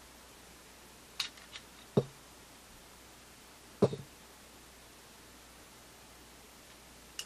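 Sig Sauer P238 pistol being handled: two light metal clicks about a second in, then two sharper knocks, about two and four seconds in.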